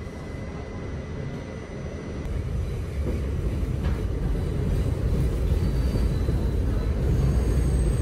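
New York City subway car heard from inside while running: a steady low rumble of wheels on rail that grows louder about three seconds in. A faint high whine joins near the end.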